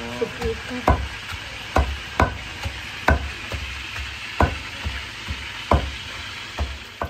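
Long wooden pestle pounding shallots and chillies into spice paste in a deep stone mortar: a dull thud roughly every second, a few in quick pairs, over a steady hiss.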